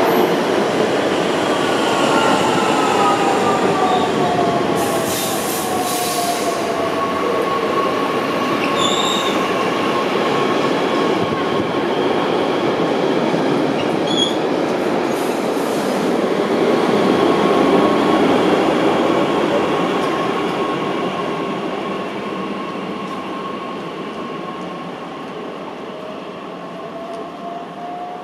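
Bombardier Talent 2 (DB class 442) electric multiple units at the platform. The motor whine falls in pitch over the first few seconds as a train slows, then a steady whine runs with the rolling noise of the wheels, with a couple of brief high wheel squeals. From about two-thirds through, the train pulls away and fades, its motor tone rising near the end.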